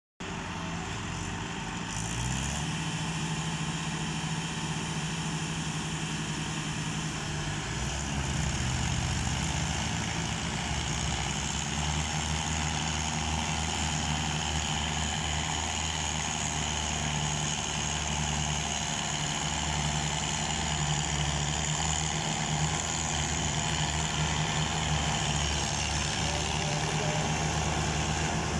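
Diesel engines of several farm tractors running under load as they pull a heavily loaded sugarcane trailer through mud. The engine note grows louder about eight seconds in and then holds steady.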